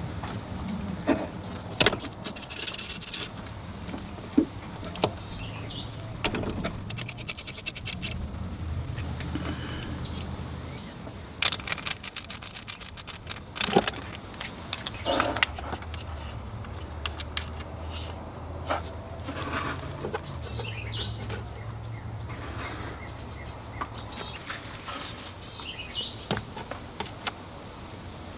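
Hand tools working on a Vespa scooter's intake manifold. A quarter-inch ratchet clicks in two short rapid runs in the first several seconds as the 8mm bolts are undone, and scattered clinks, taps and scrapes of metal tools and parts follow. A steady low hum runs beneath.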